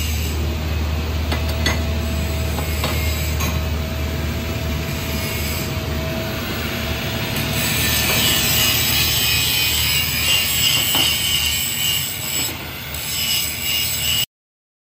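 Steady welding-shop background noise: a low machine hum under a continuous hiss, which grows brighter about eight seconds in and cuts off suddenly near the end.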